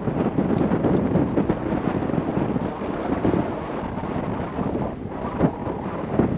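Wind buffeting the microphone: a continuous, gusting low rumble.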